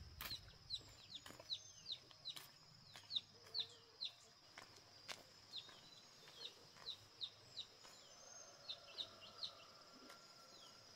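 Chicks peeping faintly, short high peeps that fall in pitch, about two a second in uneven runs, over a steady high insect whine.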